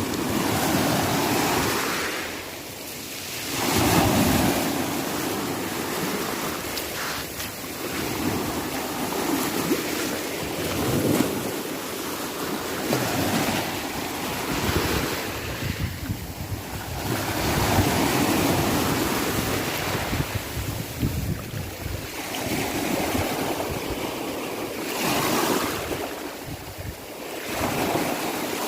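Sea waves breaking and washing ashore, the surf swelling and falling away every few seconds, with wind noise on the microphone.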